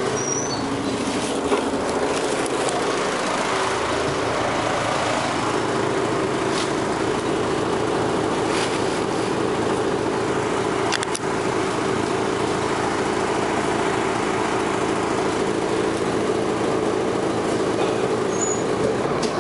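Dennis Arrow double-decker bus running along under its engine and ZF gearbox. A steady whine sets in about five seconds in and holds, with a single click near the middle.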